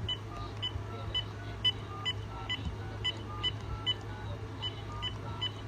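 Touch-tone (DTMF) keypad tones from a RadioShack 43-1704 cordless phone, its keys pressed one by one: about a dozen short beeps, two or three a second, changing pitch from key to key, with a brief pause a little past the middle.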